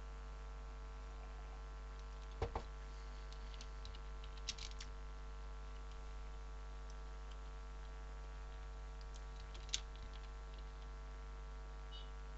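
Steady electrical hum with a few short clicks on top: two close together about two and a half seconds in, a few more around four and a half seconds, and a sharper single click near ten seconds.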